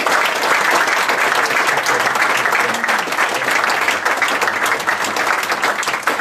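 Audience applauding: a dense, steady round of clapping from a full hall.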